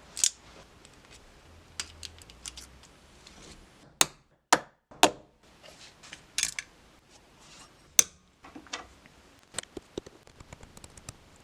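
Irregular sharp metal clicks and clacks from the parts of an H&R pistol being handled, with a few louder knocks among many lighter ticks.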